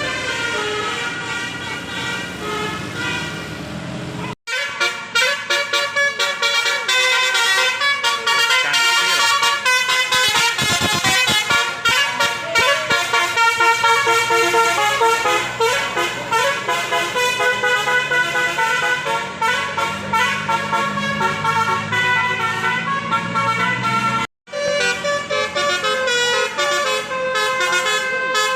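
Tour bus basuri multi-tone 'telolet' air horn playing a quick tune of stepped notes. It breaks off abruptly twice, about four seconds in and about twenty-four seconds in, each time starting again with another tune.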